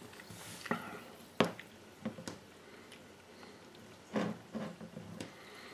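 Sipping and swallowing cola from a glass, with a few sharp clicks of the glass against the tabletop.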